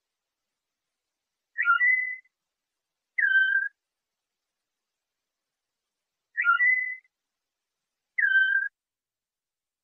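Canary tutor recording of pure, flute-like whistled notes. Four short phrases, each about half a second long, come in two alternating shapes: one sweeps up and down and then holds level, the other slides down and then holds. Dead silence separates them.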